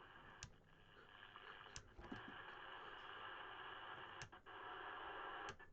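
CB radio receiver on lower sideband hissing with static, with four sharp clicks spread through as the channel selector is turned.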